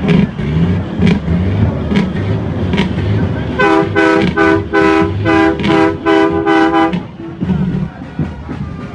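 Truck air horn sounding a rapid series of short blasts, about eight in three seconds, each blast a chord of several tones, starting a few seconds in.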